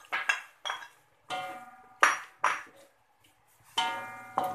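A wide metal wok knocked repeatedly as meat slices are scraped off a plate into it and stirred with a spatula: irregular clanks and clinks, several leaving the wok ringing briefly.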